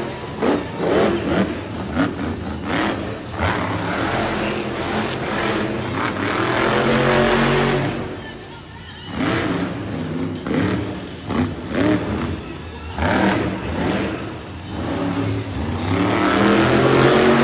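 Monster truck's supercharged V8 revving hard again and again, rising and falling in pitch, with a short lull about eight and a half seconds in.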